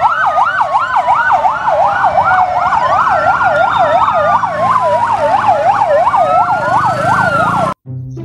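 Fire engine sirens on a line of responding fire trucks: a fast yelp sweeping up and down about three or four times a second over a slower rising and falling wail, cutting off suddenly near the end.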